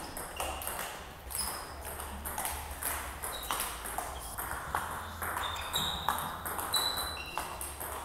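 Table tennis ball clicking off the table and paddles, a run of short, bright ticks at an irregular few per second.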